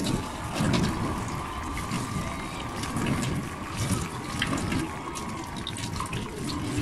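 Tap water running and splashing into a stainless steel sink as lemongrass stalks are rinsed and rubbed under the stream, with many small irregular splashes.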